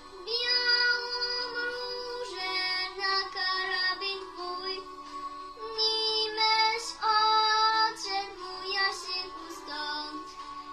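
A young girl singing a Polish patriotic song over an instrumental backing track, in slow phrases with long held notes.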